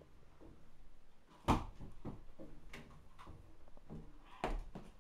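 Thumps and knocks of someone climbing down a stepladder and stepping onto a wooden floor, with two heavier thuds, one about a second and a half in and one near the end.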